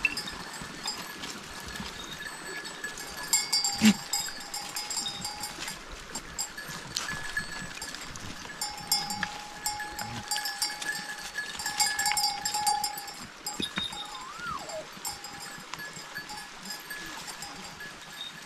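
A herd of goats moving and feeding over loose stones, with livestock bells clinking and ringing and many small clicks. There is a sharp knock about four seconds in and a brief whistle-like glide past the middle.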